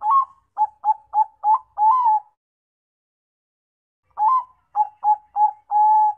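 Bangkok-type zebra dove (perkutut bangkok) cooing: two phrases of its song, each a quick run of short staccato coos ending in a longer drawn-out note, with a pause of about two seconds between them.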